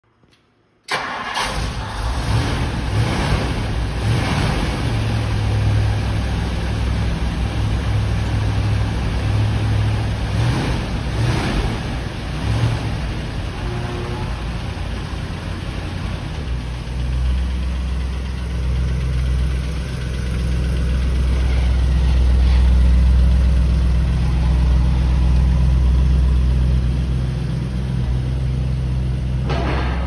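1962 Ford Thunderbird's 390 V8 starting about a second in and catching at once. It is revved briefly several times, then settles into a steady, deep idle that grows louder in the second half.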